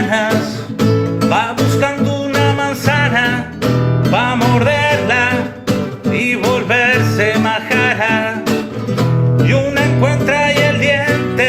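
A voice singing a song in Spanish with guitar accompaniment.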